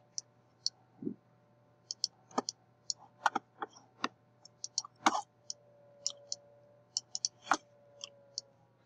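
Computer mouse buttons clicking at an irregular pace, about twenty short, sharp clicks in all, over a faint steady hum.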